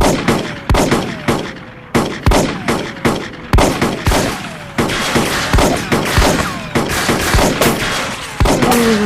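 Gunfire sound effects in an animated gunfight: an irregular run of loud shots, several trailing off in a short falling whine.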